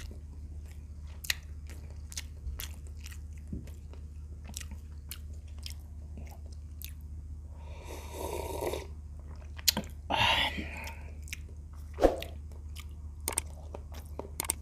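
Close-up mouth sounds of a person eating by hand: chewing with frequent wet lip-smacks and clicks. About eight seconds in comes a slurping sip of broth from a glass, then another short slurp a couple of seconds later.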